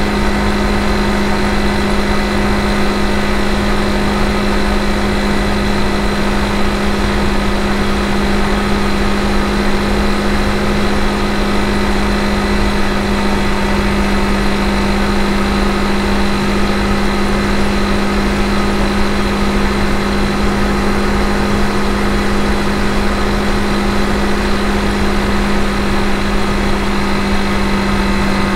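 Honda CRF250 Rally's single-cylinder engine running at steady, unchanging revs, over a low rush of wind and road noise.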